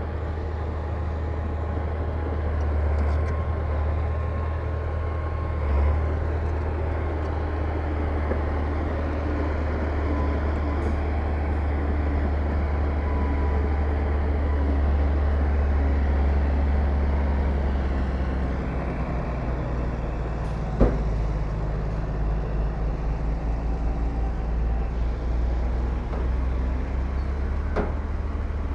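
Heavy diesel earthmoving machinery running: a steady low engine drone that swells a little midway and turns into a fluttering, uneven beat about two-thirds through, with one sharp metallic knock about 21 seconds in.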